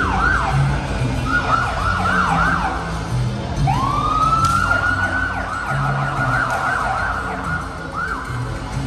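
Emergency vehicle siren switching between a rapid yelp, with quick up-and-down sweeps, and a slow wail that rises and holds, about four seconds in and again near the end.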